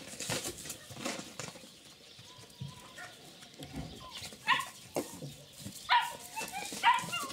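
A puppy yapping from a shed: short, high yelps, four or five of them in the second half, after a quieter stretch with light knocks and rustles.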